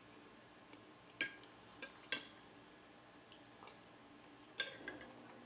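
Metal spoon clinking against a glass bowl while scooping rice porridge: a few sharp, separate clinks, with the loudest one near the end.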